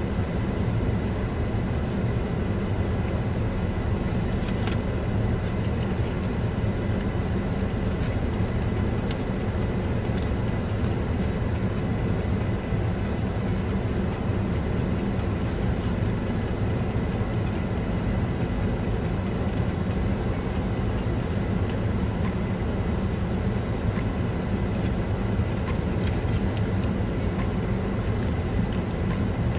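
Steady low hum of a car heard from inside the cabin, typical of the engine idling with the ventilation running, with a thin steady whine and faint clicks now and then.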